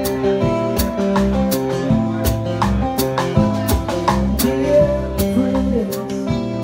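Acoustic guitar strummed with a drum kit playing live, with a steady beat of drum and cymbal hits under the guitar chords.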